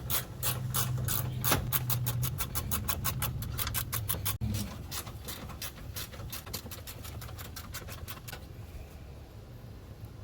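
Hand ratchet wrench clicking in a rapid run of strokes, the clicks coming faster in the middle and stopping about eight seconds in.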